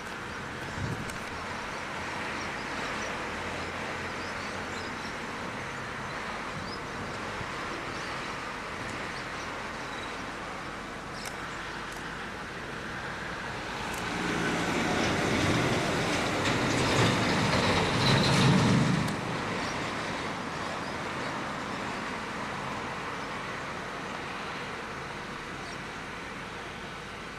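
Steady outdoor rushing noise that swells louder with a low rumble for about five seconds around the middle, then drops back abruptly.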